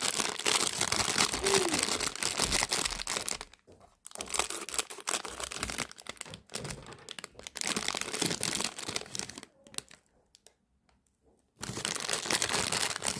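Plastic packaging crinkling and tearing as it is handled and ripped open, in bouts, with a pause of about two seconds near the end.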